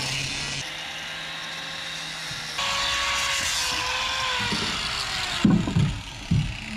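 Angle grinder with a sanding disc running against wood, its whine dropping in pitch as it winds down about four seconds in. A few heavy knocks follow near the end.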